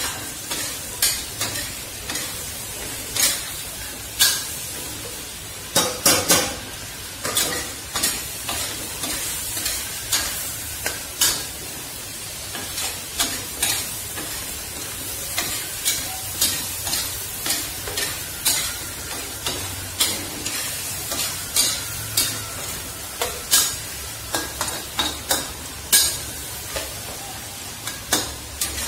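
Food frying in a pan with a steady sizzle, while a spatula stirs and scrapes, knocking against the pan irregularly one to three times a second.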